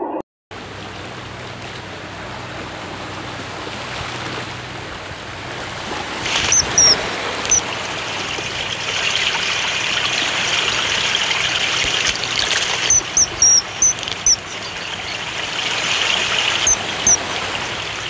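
Steady rushing, like running water in a stream, with short high-pitched bird chirps over it. The chirps come in small groups, about six and a half seconds in, again around thirteen to fourteen seconds, and twice near the end.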